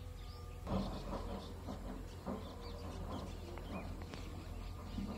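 Chickens clucking with small birds chirping, in short repeated calls that start about two-thirds of a second in, over a steady low hum.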